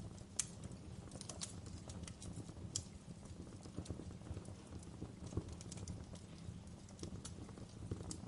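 Wood fire crackling: irregular sharp snaps and pops over a steady low rumble of the flames.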